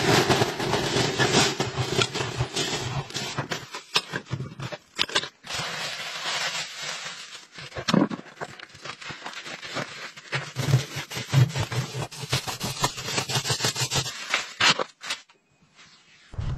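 Ash and debris being scraped out of a brick stove's firebox by hand into a plastic bag: irregular scraping and crunching with rustling plastic and small clatters.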